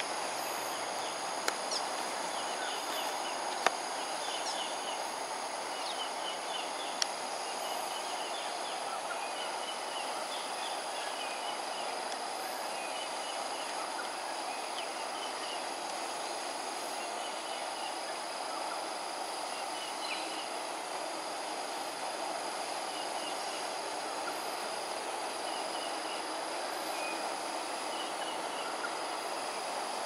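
Outdoor ambience: a steady, high insect drone over an even background hum, with small birds chirping on and off. Three sharp clicks fall in the first seven seconds.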